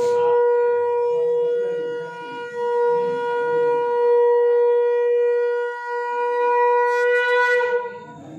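Conch shell (shankh) blown in one long, steady note, dipping briefly twice and stopping just before the end. This is the call that opens the aarti.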